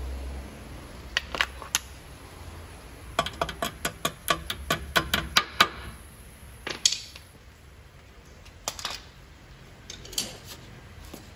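Sharp metal clicks and taps from hand tools working a split pin through the castle nut of a tie-rod end, including a quick string of about five clicks a second about three seconds in.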